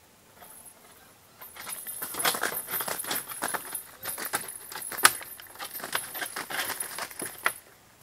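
An eagle flapping and scrabbling on corrugated roof sheeting, a loud dense clatter of wings and talons against the roof that starts about a second and a half in and stops just before the end.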